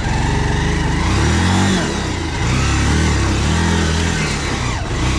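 Motorcycle engine running under way, its pitch rising and falling a couple of times as the rider opens and eases the throttle, over a steady rushing noise.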